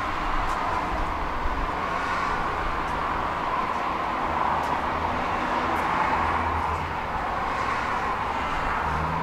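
Tram running along the track, heard from on board: a steady wheel-on-rail rolling noise over a low rumble.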